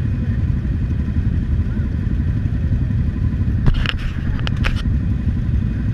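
Motorcycle engines idling together in a steady low rumble, with a quick run of four or five clicks about four seconds in.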